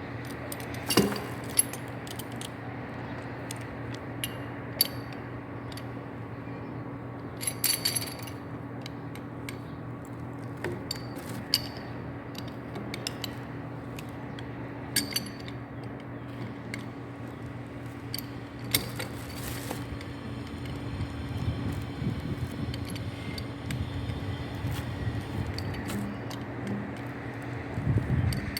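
Scattered clinks and taps of tools and pipe fittings being handled during plumbing work, with more rubbing and handling noise in the last third. A steady low hum runs underneath.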